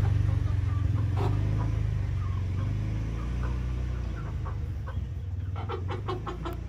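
Cornish cross meat chickens clucking softly and sporadically in their pen, with the calls getting busier near the end, over a steady low rumble.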